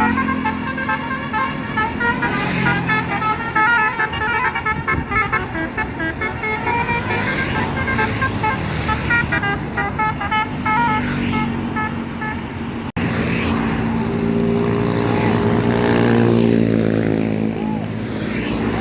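Bus 'telolet' (basuri) musical multi-tone horn playing a quick tune of short notes for about twelve seconds. After a sudden cut, a bus engine runs loudly with its pitch rising and falling.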